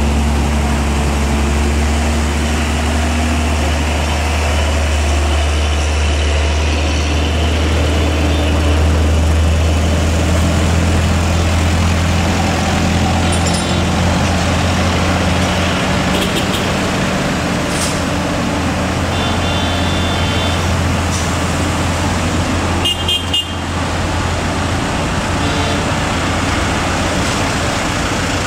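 Diesel truck engines running as heavy trucks crawl past at close range in slow traffic, a steady low drone that is heaviest in the first half. A few brief horn toots come in the second half.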